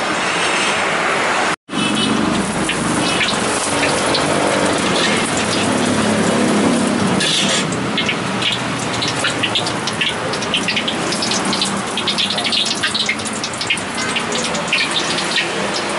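Hot oil sizzling and crackling in a wok as a tofu-and-egg cake deep-fries. The sound briefly cuts out about a second and a half in.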